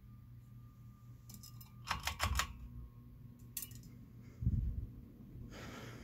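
A ceiling fan motor hums steadily as the fan spins up. Over it come sharp metallic clicks and rattles, typical of the fan's pull-chain switch: a cluster about two seconds in and another around three and a half seconds. A low thump follows a second later.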